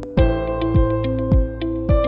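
Background music: sustained synth chords over a steady deep kick-drum beat, a little under two beats a second, with light ticking percussion on top.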